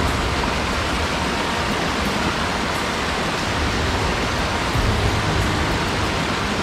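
Headwater mountain stream rushing steadily, with a low rumble swelling briefly about five seconds in.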